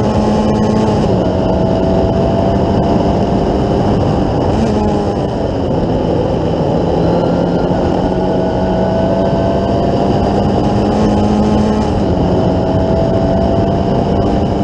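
Formula Ford 1600 racing car's four-cylinder engine heard onboard, running hard at fairly steady revs. The engine note climbs slowly and drops back several times, over heavy wind and road rush.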